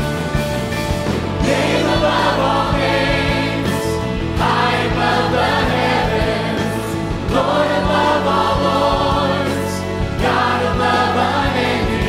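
Large mixed choir of men and women singing a Christian worship song with piano accompaniment; the sung phrases swell in about every three seconds.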